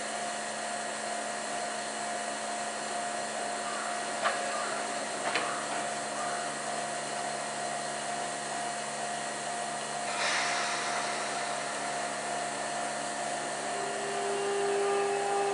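Steady whirring hum of a Sotetsu electric train standing at the platform with its onboard equipment running. Two sharp clicks come about four and five seconds in, a short hiss about ten seconds in, and a steady tone starts near the end.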